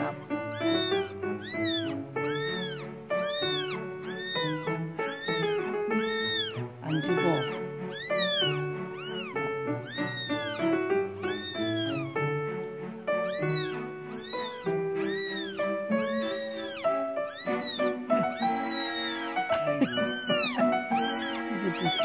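Newborn kitten mewing over and over in high cries that rise and fall, about one a second and loudest near the end, crying in protest at being held for its claws to be clipped. Background music with held notes plays underneath.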